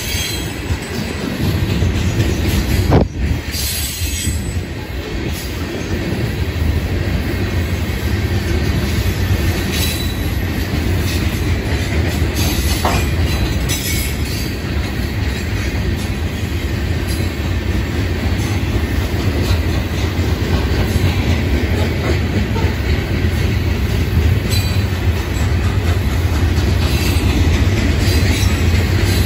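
Freight train's loaded hopper and gondola cars rolling past: a steady rumble and clatter of steel wheels on rail, with a sharp knock about three seconds in and short high wheel squeals now and then.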